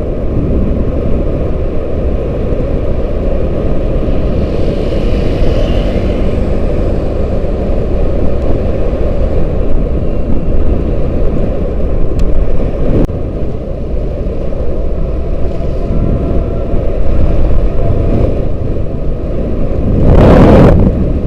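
Steady rumble of a motor vehicle on the move, with heavy wind noise on the microphone. A louder rush comes about 20 seconds in.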